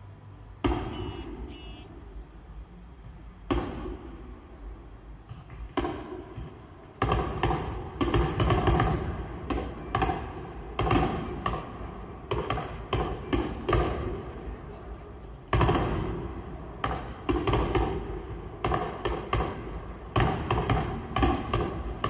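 Fireworks sound effects played over a stadium's sound system: an irregular run of booming bangs with echo, a few spaced ones at first, then coming thick and fast from about seven seconds in.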